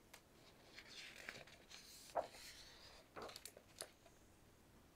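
Faint rustle and crinkle of a picture book's paper page being turned, with a few soft crackles and clicks.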